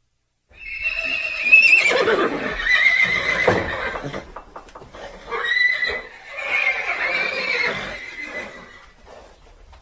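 Horse whinnying twice: two long, high-pitched neighs, the second starting about five seconds in.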